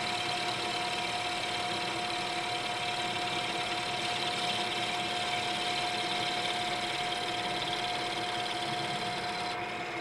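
Engine lathe running with a steady whine while the tool takes a light finishing cut across a spinning wooden pattern, adding a dry hiss; the hiss of the cut stops just before the end.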